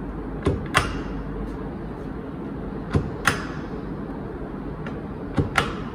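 Hand-held rubber stamp knocked down onto a box, sharp taps in three pairs about two and a half seconds apart, over a steady background hum.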